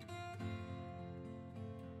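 Instrumental background music: a Christmas carol arrangement with plucked acoustic guitar, notes held and chords changing.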